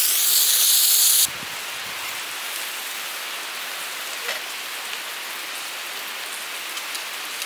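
Pork sizzling on a stone grill plate over a camping burner: a loud, close hiss for about the first second, then a steadier, quieter sizzle with a few faint pops.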